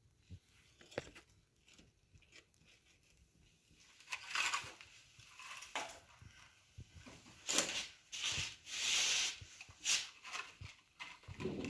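Wood and kindling being handled and shifted in a fireplace: a few small clicks, then from about four seconds in irregular rustling, scraping and tearing noises.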